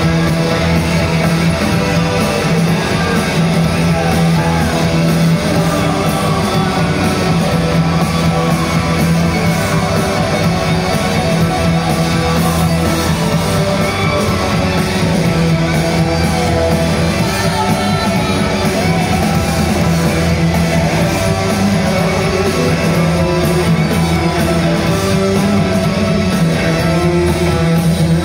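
Live rock band playing loud electric guitars over a steady low droning note, with singing, in a large hall.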